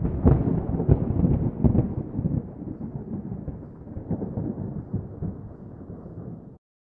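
Thunder: a few sharp cracks in the first two seconds, then a rolling rumble that slowly fades and cuts off abruptly near the end.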